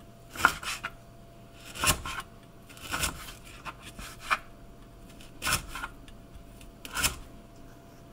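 Cleaver chopping ginger on a plastic cutting board: about ten separate knocks of the blade on the board, irregularly spaced.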